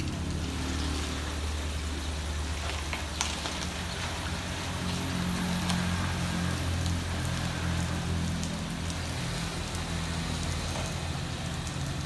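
Steady rain falling, with a low steady hum underneath.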